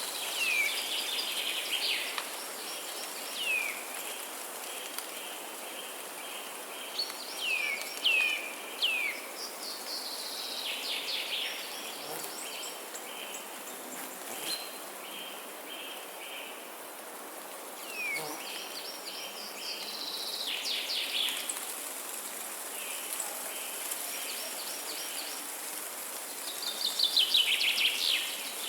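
Forest birds singing in repeated short phrases of quick falling whistled notes, coming in several bursts with the loudest near the end, over a steady high-pitched hiss.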